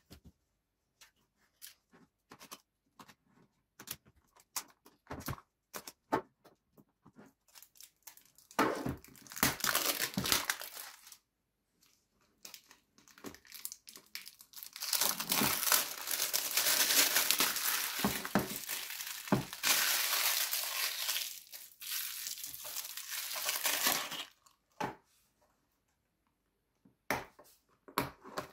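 Clear plastic shrink-wrap film crinkling as it is torn and peeled off a plastic component box: a short stretch, then a longer one of about ten seconds, with scattered light taps and clicks from handling the box in between.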